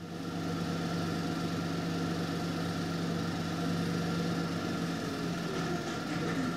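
Steady mechanical hum of machinery, a low drone with a fainter high whine above it, laid under animated turning gears. A faint tone slides downward near the end.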